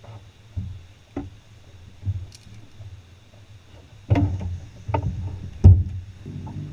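Knocks and thumps on an aluminum boat's deck and hull: a few soft ones, then three loud ones in the second half. A steady hum starts near the end.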